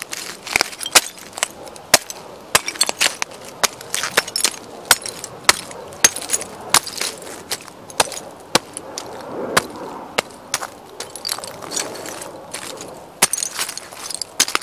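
Shards of old china plates cracking and crunching under stomping Timberland boots: an irregular string of sharp cracks, a few a second, with gritty grinding between as the pieces break smaller.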